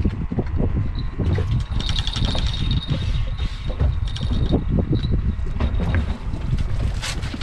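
Fishing reel being cranked as a fish is reeled up to the boat, its mechanism ticking and whirring, over a steady low rumble of wind on the microphone.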